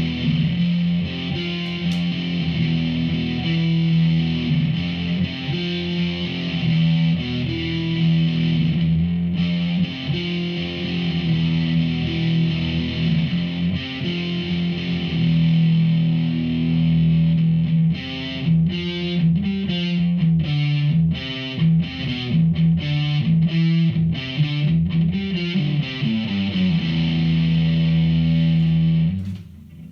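Electric guitar played through a Behringer V-AMP PRO amp-modelling processor on a distorted amp sound. It starts with sustained chords and notes, changes about two-thirds of the way through to short choppy chords about twice a second, and ends on a held chord that is cut off near the end.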